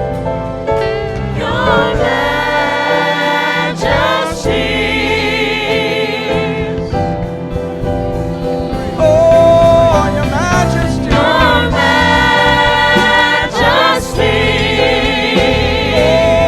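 Gospel choir singing with instrumental accompaniment, the voices held on long, wavering notes.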